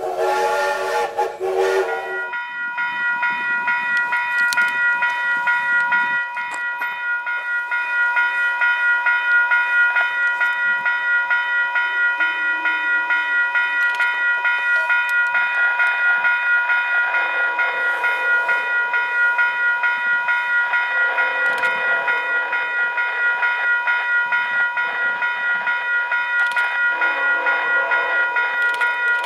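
Railway crossing bell ringing steadily with a regular pulse. In the second half, the horn of an approaching VIA Rail passenger train sounds several long blasts from a distance, the crossing warning. A short whistle sting opens it, lasting about two seconds.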